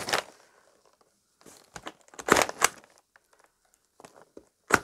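Self-inking rubber stamp pressed down onto a paper envelope resting on a cardboard box: a few sharp clacks, the loudest pair about halfway through and another near the end, among paper and brown packing paper crinkling.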